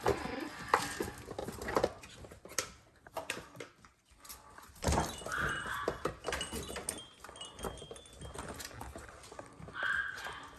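Maltese puppies giving small whines and yips while pawing at a dog puzzle toy, with scattered clicks and knocks from the toy.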